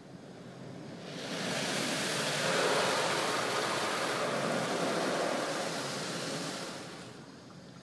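Automatic car wash going over the car, heard from inside the cabin: a rushing noise swells about a second in, holds, and fades away near the end.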